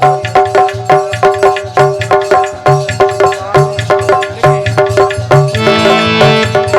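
Instrumental interlude of a folk devotional song: a hand drum of the tabla/dholak kind plays a quick, steady rhythm under a repeating melody. Held chords come in about five and a half seconds in.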